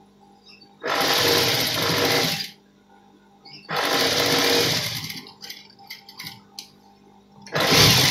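Electric sewing machine running in three short bursts of stitching, each a second or two long, as a pocket opening is top-stitched. Between the bursts there is only a faint hum and a few small clicks.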